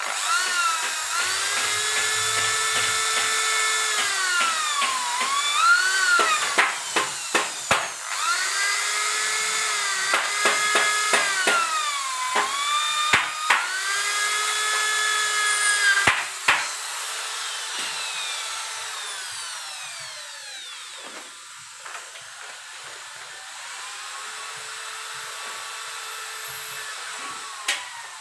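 Corded electric drill running against an aluminium door profile, its motor whine held in long runs that sag in pitch as the bit bites and then recover. In between it is started and stopped in a string of quick blips, and about halfway through the loud running stops, leaving a quieter steady sound.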